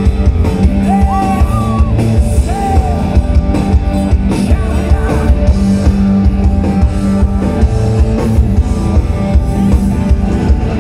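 Live rock band playing loud through a concert PA, with a male lead vocal singing long held notes in the first few seconds, heard from within the crowd.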